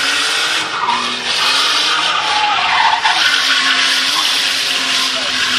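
A drift car sliding sideways at high revs, its tyres screeching continuously and the engine note wavering up and down as the driver works the throttle.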